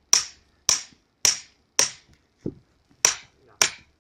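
Hammer striking the steel head of an axe wedged in a log: sharp metal-on-metal clinks about twice a second, driving the axe in to split the wood. Six hard strikes, with one softer knock about halfway through.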